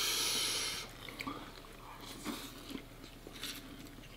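A loud, hissing slurp of instant noodles lasting under a second, followed by quieter chewing and small mouth noises.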